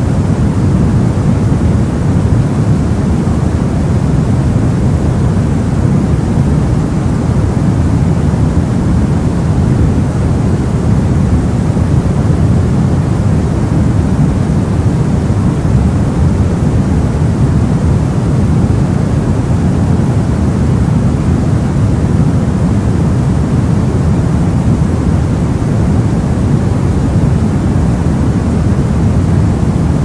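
Steady, unchanging white noise with most of its weight in the low range, a continuous deep hiss. It is a baby-soothing noise track, meant to imitate the sound of the womb.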